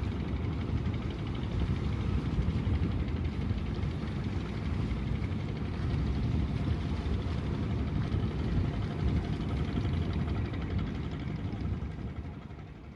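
A fishing boat's engine running steadily, fading out near the end.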